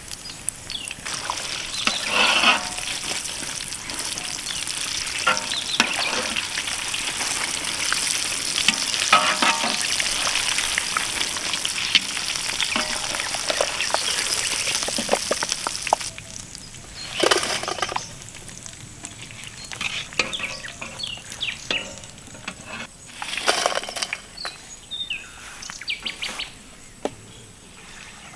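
Batter-coated egg chops deep-frying in hot oil in a kadai. A steady sizzle runs for about the first sixteen seconds, then dies down to quieter crackling with a few short louder surges.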